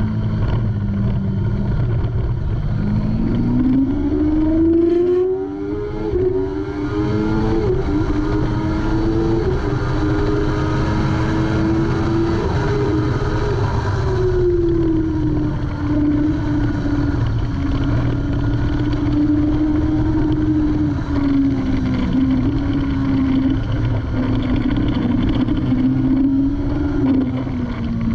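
Kawasaki ZX-6R 636's inline-four engine under hard acceleration on track, its pitch climbing in steps through the upshifts. About fourteen seconds in the pitch drops as the bike slows, then it holds steady before easing lower near the end, over a constant rush of wind.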